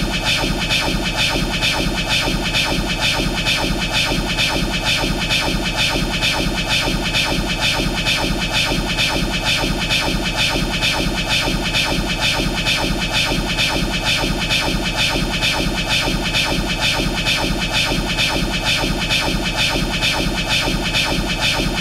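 Looped anime sound effect of Law's 'Room' power: a steady electronic hum with a fast, even pulse and a buzzing, noisy texture.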